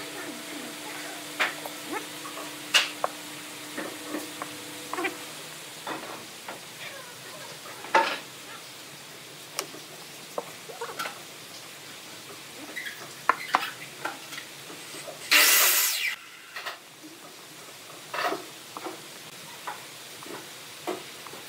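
Flat wooden stick spreading and scraping glue onto wood blocks: repeated sticky scrapes and clicks, with light knocks as the blocks are handled and pressed together on a plastic-sheeted bench. A brief loud burst of noise about fifteen seconds in.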